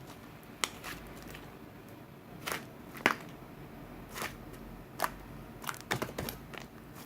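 Slime being squeezed and worked by hand, giving irregular sharp pops and clicks as air pockets burst.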